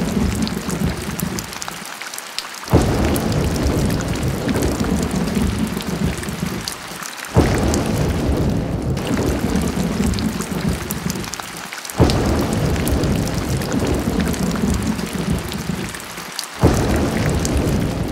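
Heavy rain with thunder: a sudden loud clap about every four and a half seconds, four in all, each followed by deep rumbling that fades under a steady hiss of rain. The pattern repeats very evenly each time.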